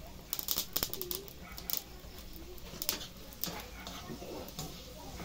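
A cluster of sharp clicks and knocks in the first second, then scattered clicks: firewood being shifted under a wok on an open wood fire, then a spatula stirring food in the wok.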